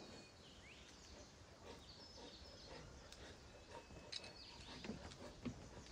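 Very quiet ambience with small birds chirping now and then, short high chirps scattered through. A few soft knocks come in the second half.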